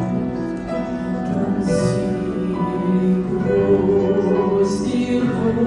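Voices singing a hymn with instrumental accompaniment, in long held notes.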